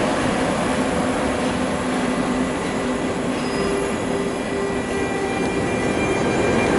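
Frecciarossa high-speed electric train running away along the track, its wheels rumbling on the rails with steady squealing tones over the noise.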